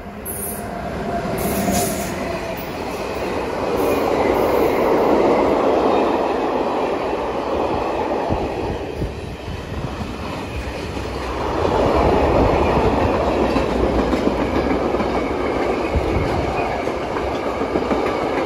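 Freight train of car-carrier wagons hauled by a BLS electric locomotive rolling past close by, its wheels and wagons making a continuous rumble that swells louder twice as the wagons go by.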